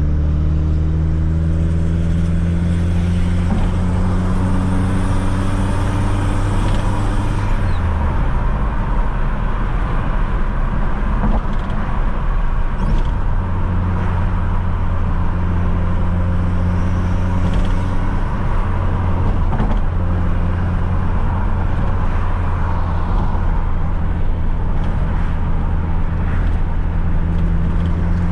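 Fiat Coupe 2.0 16V Turbo's four-cylinder engine driving on the road, its note slowly rising under acceleration, then dropping sharply about eight seconds in. After a few seconds with little engine note it settles into a steady run, over continuous road and tyre noise.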